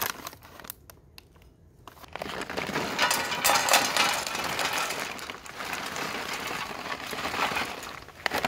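Paper bags of smoking wood, mesquite chunks and hickory chips, crinkling and rustling as hands open them and dig through the wood, starting about two seconds in.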